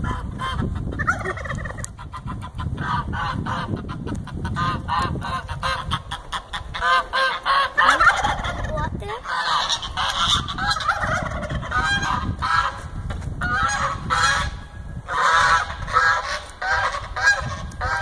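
Domestic fowl calling over and over, in quick runs of short, repeated notes several to the second that keep going with brief gaps.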